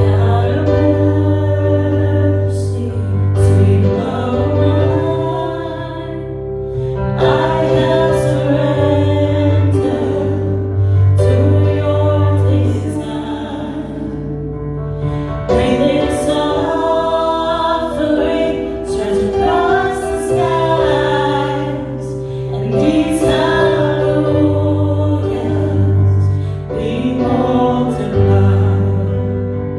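A praise song playing: singing voices over a steady instrumental accompaniment with sustained bass notes.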